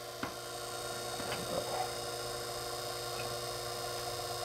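Sherline milling machine's spindle motor running steadily with a constant hum, the cutter not yet in the work, with a few faint clicks.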